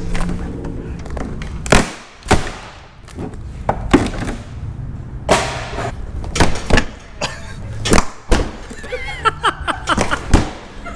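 A dozen or so sharp thumps and cracks, irregular and bunched into a quick flurry near the end: a car's rear wing being struck and forced to break it loose from its hidden clips.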